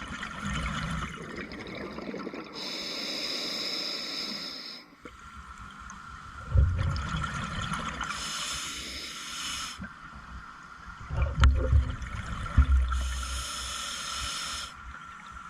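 Scuba diver breathing through a regulator underwater: hissing inhalations, about three in all, alternating with low rumbling bursts of exhaled bubbles.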